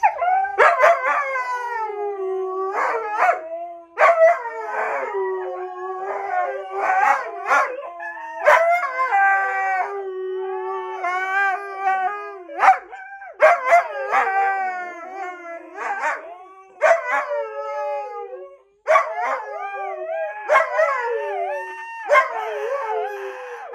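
Huskies howling and 'talking' back together in long, wavering woo-woo calls that slide up and down in pitch, one voice often holding a steadier lower note beneath another; there is one short break about three-quarters through.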